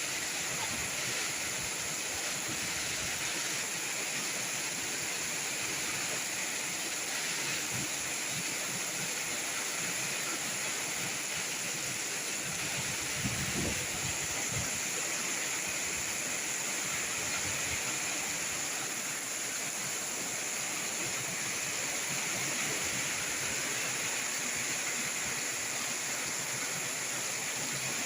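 Heavy rain pouring steadily, an even hiss. There is a brief low thud about halfway through.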